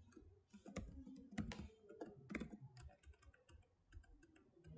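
Computer keyboard typing: a faint run of irregular keystrokes.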